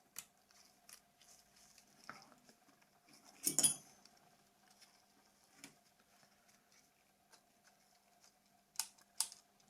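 Scattered small clicks and taps of a flip phone's plastic parts and a tool being handled during disassembly. The loudest is a short rattling cluster about three and a half seconds in, and two sharp clicks come near the end, over a faint steady hum.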